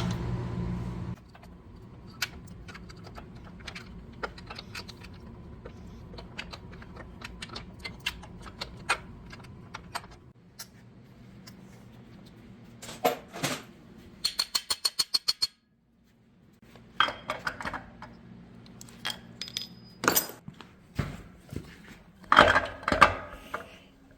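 Metal hand tools and engine parts clinking and clanking during an engine teardown: scattered sharp clicks and knocks, a quick run of about eight evenly spaced clicks around the middle, and louder clusters of clanks near the end.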